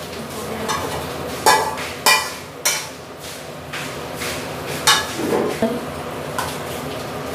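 Metal spatula scraping and knocking against a frying pan as fried food is tipped into a cooking pot: four sharp metallic clanks, about a second and a half in, two seconds in, near three seconds and near five seconds, the first two with a short ring.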